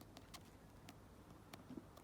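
Near silence with a few faint, short clicks spread through it.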